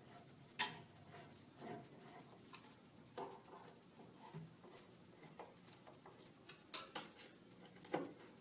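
Faint, scattered light clicks and knocks, about six over several seconds, from hand work on a screw-assembled display box: screws being hand-tightened and the panels handled.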